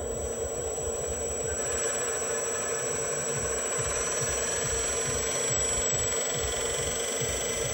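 Radio-controlled 1/14 dump truck running while stationary: a steady hum with a thin, high-pitched whine over it and a low, regular pulsing underneath.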